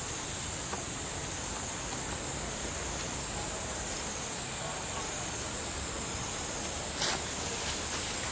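Steady high-pitched insect drone over an outdoor background hiss, with a single short knock about seven seconds in.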